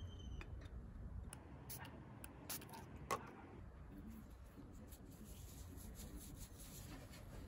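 A felt-tip permanent marker squeaks briefly on an aluminum tag, then a few light clicks sound as the small metal tag is handled on a wooden table, the sharpest about three seconds in.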